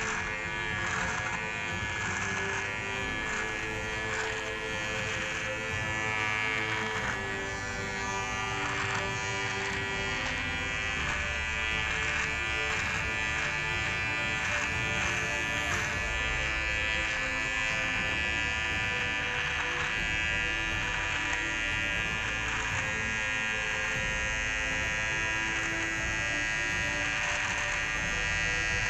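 Cordless rechargeable beard trimmer running with a steady electric buzz as it is drawn over beard and moustache hair.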